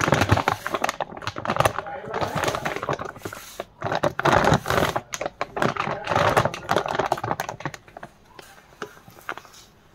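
Washing powder being poured from a plastic Surf Excel packet into a plastic jar: the packet crinkling and the granules running into the jar as dense, irregular crackling. It thins out near the end.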